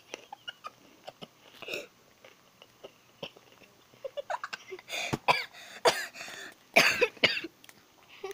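A boy coughing and clearing his throat: a few small mouth clicks at first, then a run of loud, harsh coughs in the second half, from spicy Takis powder caught in his throat.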